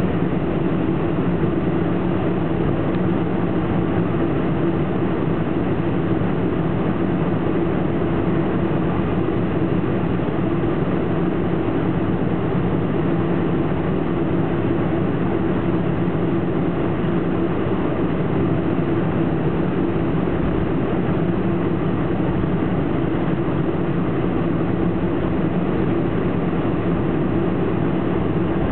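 Cabin noise inside a Boeing 747-400 taxiing: the engines running steadily at low taxi power, an even rush with a constant low hum that does not change.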